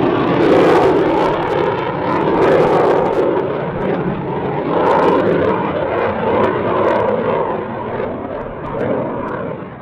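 F-16 fighter jet's engine roaring as the jet flies away, the roar slowly fading and dropping off more quickly near the end.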